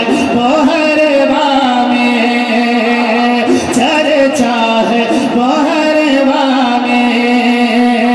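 A man singing a naat into a microphone over a PA, his melodic line bending and breaking between phrases, with a steady held drone underneath.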